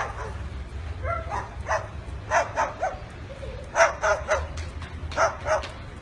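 White cockatoo imitating a dog, giving a series of short barks, many in quick pairs, over a steady low rumble.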